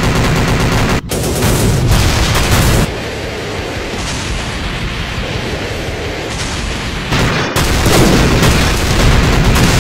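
Dubbed-in action-film sound effects of gunfire and explosions, loud and continuous, changing abruptly about a second in, around three seconds in, and again about seven and a half seconds in, with a steadier, slightly quieter rumble in between.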